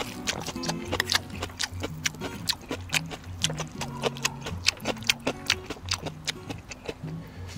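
A person eating jjajang ramen close to the microphone: noodles slurped and chewed, with many irregular short mouth clicks. Background music with a steady low bass line runs underneath.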